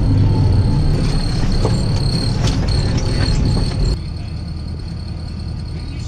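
AGCO tractor running down the road, a heavy engine and cab rumble heard from inside the cab, cutting off abruptly about four seconds in to a quieter steady hum.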